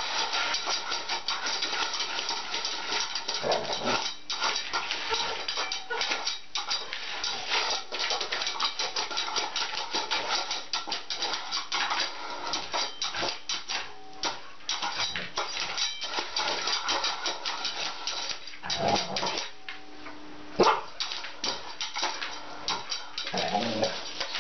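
A dog's claws scratching rapidly and repeatedly at a round disc on a vinyl floor, in quick clicks and scrapes. The dog gives a few short vocal sounds, about a quarter of the way in and near the end.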